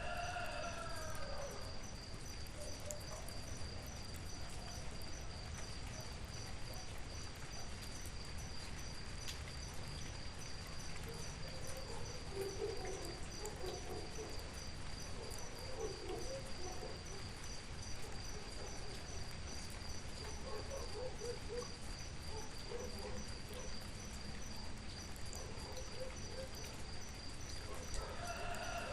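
Steady rain hiss with a cricket trilling in a high, evenly pulsing tone throughout. A rooster crows once at the very start and again near the end, and softer low calls come and go in the middle.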